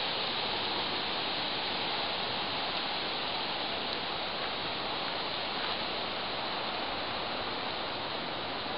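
A steady, even hiss of rushing noise with no distinct events and no change in level.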